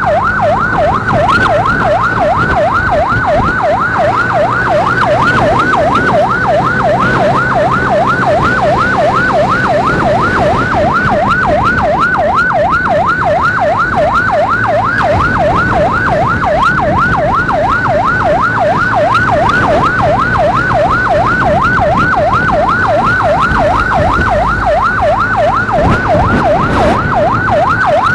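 Electronic emergency siren in fast yelp mode, its pitch sweeping up and down about two and a half times a second without a break, with the steady hum of a motorcycle engine underneath.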